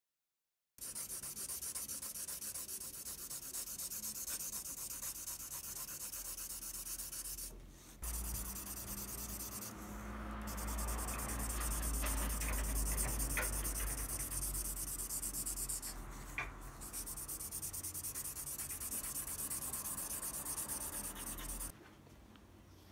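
A pad rubbing back and forth over pencil graphite shading on drawing paper, a steady scratchy rubbing with a few brief pauses. It starts abruptly about a second in and drops away sharply near the end.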